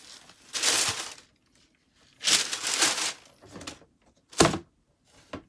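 Cardboard shoebox and its paper wrapping being handled, with two stretches of rustling, then a single loud thunk about four seconds in as the box is set down.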